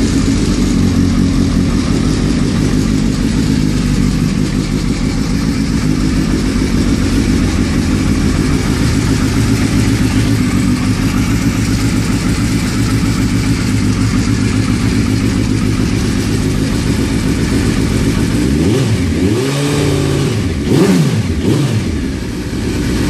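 Suzuki Hayabusa inline-four engine idling steadily through a Quill aftermarket exhaust, then, near the end, revved up and back down in a few quick throttle blips.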